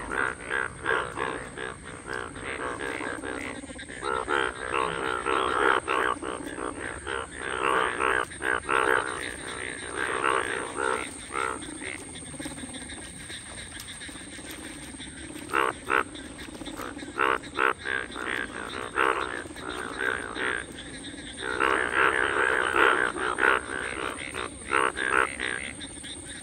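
A breeding chorus of male Indian bullfrogs (Hoplobatrachus tigerinus), many frogs calling at once in dense, overlapping croaks. These are mating calls. The chorus swells louder twice, in the middle and again near the end.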